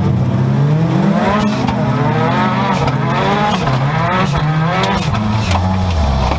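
In-cabin sound of a Seat Ibiza 16V Turbo stock car's turbocharged engine racing on a dirt track, its note rising and falling again and again as the driver accelerates and eases off. Sharp clicks and knocks come through throughout.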